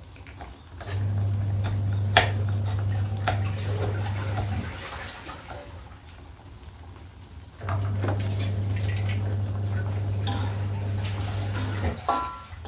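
A steady low electric hum switches on for about four seconds, stops, then runs again for about four seconds, over scattered taps of a knife on a cutting board. Near the end a metal spatula clinks in the wok.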